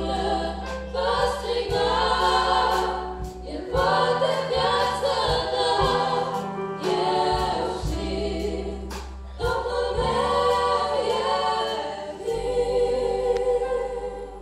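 Female vocal group singing a Romanian Christian worship song in harmony over keyboard accompaniment, ending on a long held chord near the end.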